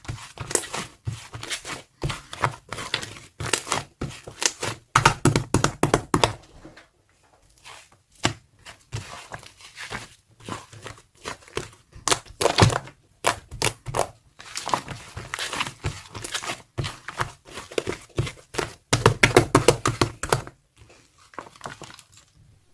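Hands squeezing and pressing slime clay, giving rapid runs of crackling, popping clicks in spells, with a short lull about seven seconds in.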